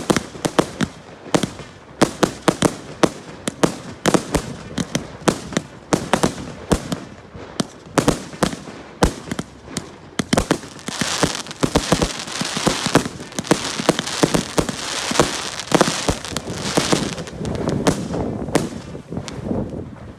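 Fireworks display: a rapid run of sharp bangs from bursting shells. From about halfway in, a dense crackling fizz joins the bangs.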